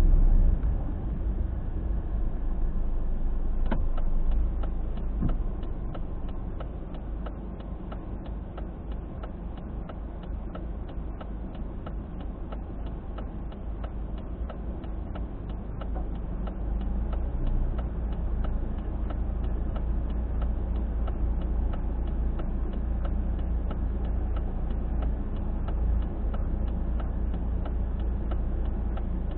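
Car driving with a steady low road rumble and a regular ticking, about three ticks a second, that sets in a few seconds in. It is the periodic noise from the wheel area that keeps time with road speed, which the uploader suspects is a failing hub bearing.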